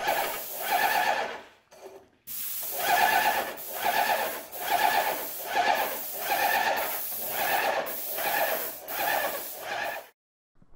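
Graco Magnum ProX17 airless paint sprayer running while primer is sprayed onto a ceiling: a whining motor and pump that pulse in a steady rhythm, a little under two strokes a second. The sound dips briefly about two seconds in and stops just before the end.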